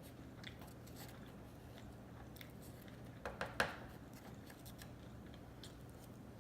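Chewing a mouthful of sushi: soft mouth clicks throughout, with three louder clicks close together about halfway through.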